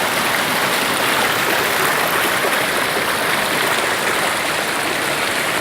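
Waterfall on a river, water falling and rushing over rocks in a steady, even rush.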